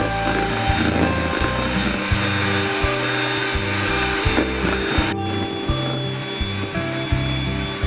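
Background music with a stepped bass line, over a steady whirring noise that cuts off suddenly about five seconds in.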